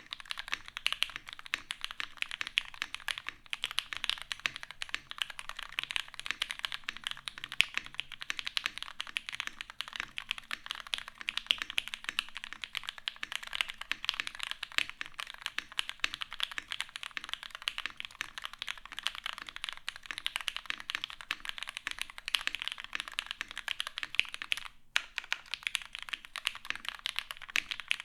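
Continuous typing on a mechanical keyboard with lubed vintage Cherry MX Black linear switches in a full aluminium plate, sandwich-mounted with no foam, under GMK keycaps: a dense stream of keystrokes with a short pause about 25 seconds in.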